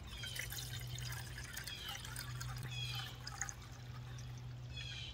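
Water poured in a thin stream into a Lixada 750 ml titanium pot, filling it.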